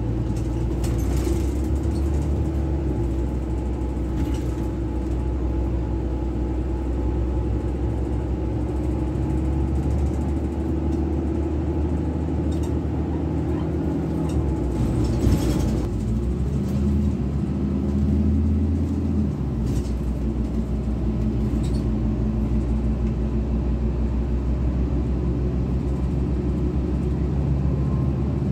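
Articulated city bus driving, heard from inside the passenger cabin: a steady low rumble of drive and road noise whose hum shifts pitch twice around the middle, with a brief rattle about halfway through.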